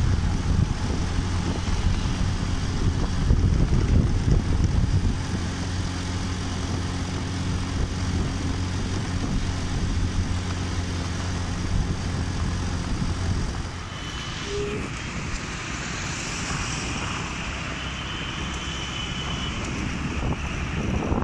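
Motorcycle engine cruising with a steady low drone, under wind rushing over the microphone. About thirteen seconds in the engine note drops away and the sound turns quieter, leaving mostly wind and road noise.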